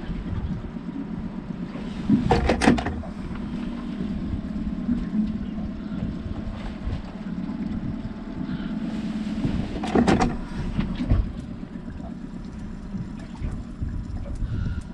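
Honda outboard motor running steadily, with a couple of brief sharp knocks about two seconds in and again about ten seconds in.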